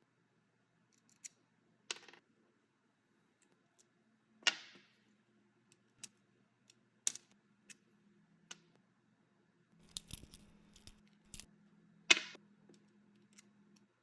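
Skateboard parts and hardware being handled: sparse clicks and small metallic clinks, with sharper hits about 2, 4.5 and 12 seconds in and a brief rattle around 10 to 11 seconds.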